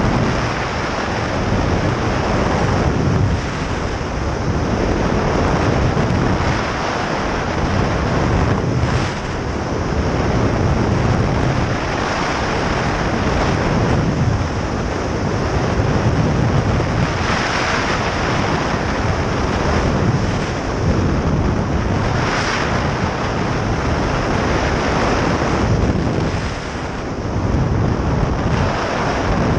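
Rushing airflow buffeting a speedflyer's camera microphone in fast flight, a loud wind roar that swells and eases every few seconds.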